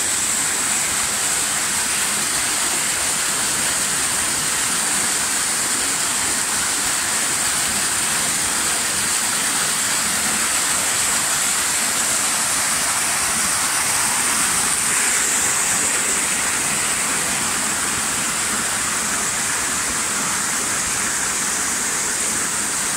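Small mountain waterfall splashing down over rocks: a close, steady rush of falling water that does not change.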